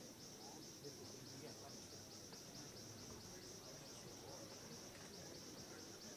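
Faint, steady insect chirping: a high-pitched trill pulsing evenly about five times a second, over a faint low murmur.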